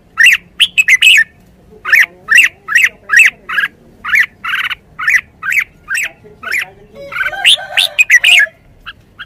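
Caged red-whiskered bulbul giving a long run of short, sharp calls, about two a second, bunching into a quicker burst near the end.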